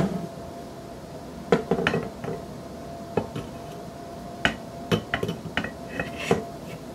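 Irregular metal clinks and knocks, about a dozen, as an M14/M1A barreled action is set down into a Blackfeather chassis stock and its receiver legs are worked toward the slots in the stock.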